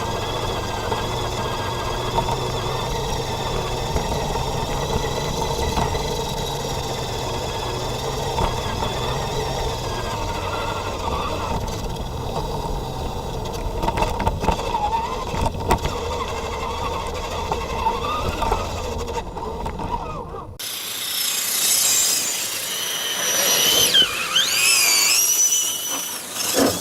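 Electric motor and gear drivetrain of a 1/10-scale RC crawler truck whining steadily under the onboard camera, varying slightly with throttle. About twenty seconds in it cuts off suddenly, giving way to higher-pitched gliding, wavering squeals.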